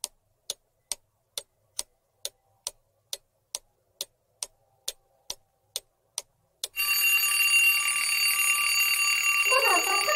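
Quiz countdown-timer sound effect: a clock ticking evenly, a little over twice a second, then about seven seconds in an alarm-clock bell starts ringing, loud and steady, signalling that the answer time is up.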